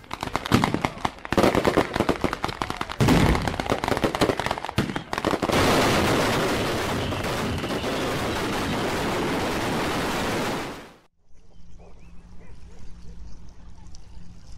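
Massed fireworks going off in rapid succession: a dense string of bangs and crackles like gunfire for about five seconds, merging into one continuous crackle that cuts off about eleven seconds in, leaving only faint outdoor background sound.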